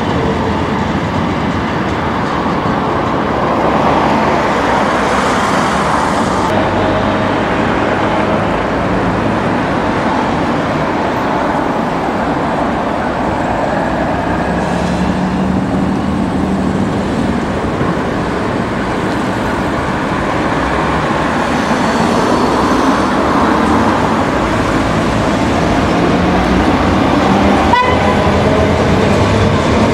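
Steady road-traffic noise at a city intersection, with a Copenhagen S-train on the elevated railway line overhead, getting louder near the end.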